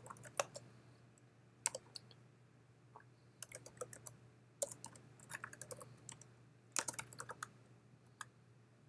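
Typing on a computer keyboard: faint keystroke clicks in short irregular bursts with brief pauses between, as a command is entered into a terminal.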